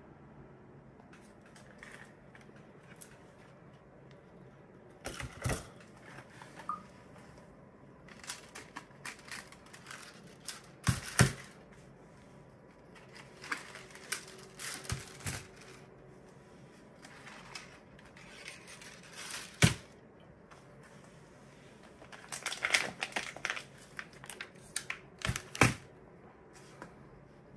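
Plastic filament spools being handled: scattered knocks and clicks as spools are picked up and set down, the loudest about eleven and twenty seconds in. Near the end, a clear plastic bag crinkles around one of the spools.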